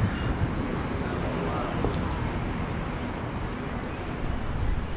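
Outdoor urban background noise: a steady low rumble of the street, with no distinct event standing out.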